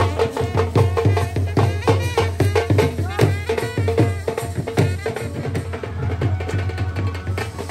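Indian wedding brass band playing a lively dance tune: a brass horn carries the melody over steady, rapid drum beats.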